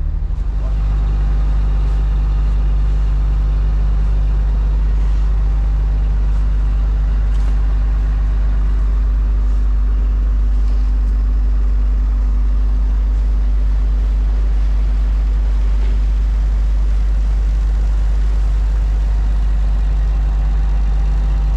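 Fishing boat's engine running underway, a steady low drone that holds level throughout, with a few faint scrapes of a snow shovel on the deck.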